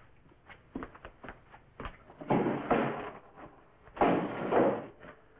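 A few footsteps on a wooden floor, then two longer scraping sounds of wood about a second apart, like a drawer or cupboard being pulled open and pushed shut.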